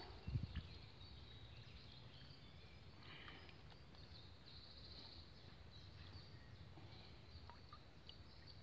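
Near silence: faint outdoor ambience with a few faint, brief bird chirps.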